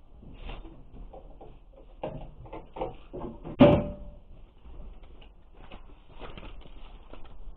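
Knocks and rattles of objects being handled and put away in a shed, with one loud sharp bang about three and a half seconds in that leaves a short metallic ring.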